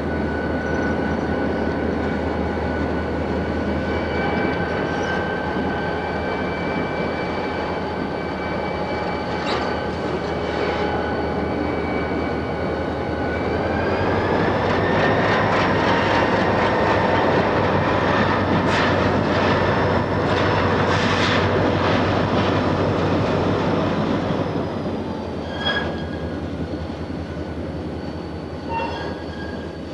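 CP Rail diesel locomotives, EMD and MLW units, passing close by: a steady engine drone with a whine that rises in pitch about halfway through and eases off near the end, as the sound fades. Wheels click over rail joints in scattered bunches.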